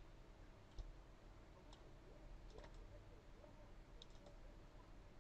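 Near silence: a few faint computer mouse clicks, some in quick pairs, over quiet room tone.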